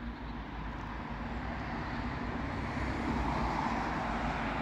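Steady road-traffic noise that grows louder, as of a vehicle approaching, swelling most in the last second or two.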